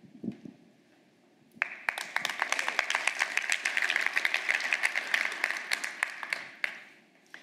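Audience applauding in a large hall. The applause starts about a second and a half in and dies away near the end.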